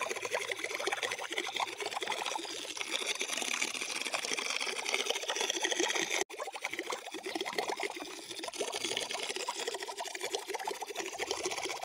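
Air from a deflating balloon escaping underwater behind a floating plastic-bottle boat: a rapid, steady bubbling sputter that pushes the boat along. It breaks off for an instant about six seconds in.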